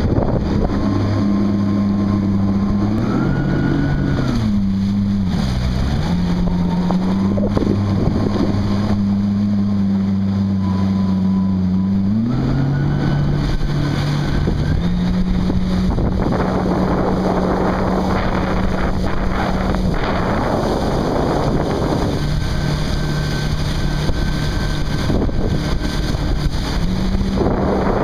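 A motorboat engine running under way with a steady hum. Its pitch dips briefly about five seconds in and steps up and down a few more times. Wind buffets the microphone and water rushes along the hull.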